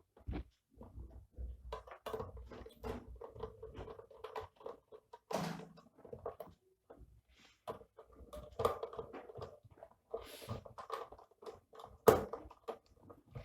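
Hands working on a UPS's plastic casing and its screws: scattered small clicks, taps and knocks, with one sharp knock about twelve seconds in, over a steady faint hum.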